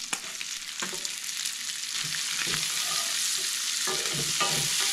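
Chopped shallots sizzling in hot bacon fat in a cast iron skillet, with a wooden spoon scraping and stirring them through the pan. The sizzle grows louder about two seconds in.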